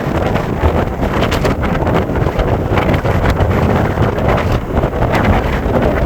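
Strong gusting storm wind buffeting the microphone, a loud, uneven rumble with the surf mixed into it.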